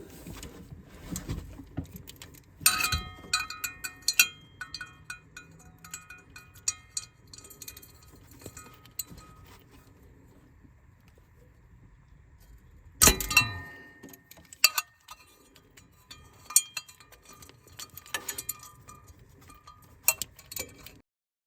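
Hand tools clinking and tapping against metal under a car while a heat-shield bolt is worked off, with short metallic rings and irregular clicks. Louder knocks come about 3 seconds and 13 seconds in.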